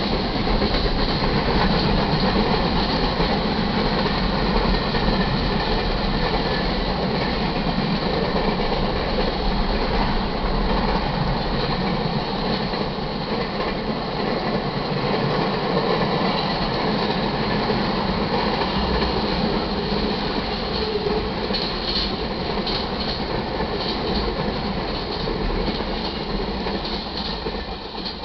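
Freight cars of a manifest train rolling past at close range: a steady noise of steel wheels on the rails, dropping away near the end as the last cars clear.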